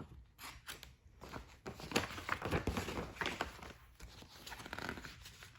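Paper rustling and crinkling as the pages of a book are handled and turned, a quick run of short scrapes and clicks.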